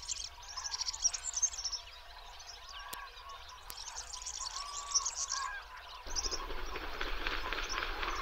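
Wild birds calling: bursts of rapid, high trilling with short lower calls between them. About six seconds in, it gives way to a denser, steadier chatter.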